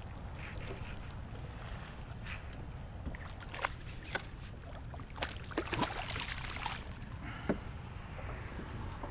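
Steady low rumble of wind and water around a fishing kayak. Scattered sharp clicks and small knocks come through it, bunched together just past the middle.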